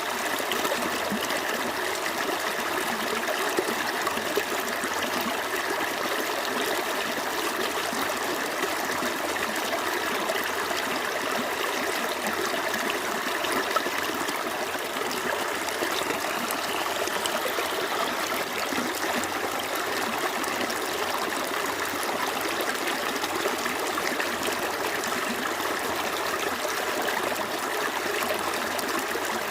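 Small stream flowing over rocks, a steady running-water sound with small splashes and trickles.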